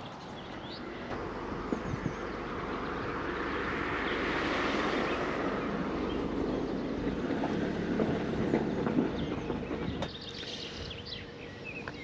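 Cars passing on the road, a rush of tyre and engine noise that swells over the first few seconds, holds, then cuts off suddenly about ten seconds in.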